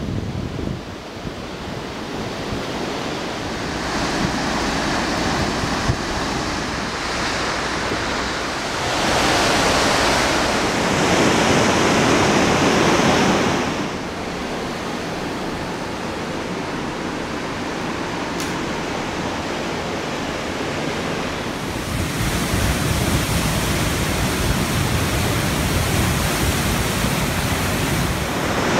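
Rushing river rapids, a steady wash of whitewater noise mixed with wind on the microphone. It gets louder about nine seconds in, drops back near fourteen seconds, and gets louder again from about twenty-two seconds.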